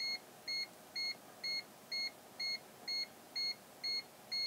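A meter's electronic beeper sounding a high, short beep about twice a second, evenly spaced, while 500 V is applied to the test leads in an insulation test.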